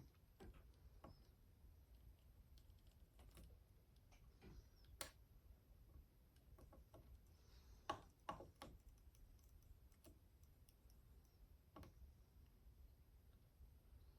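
Near silence with a handful of faint, scattered clicks and taps from hand soldering on a circuit board.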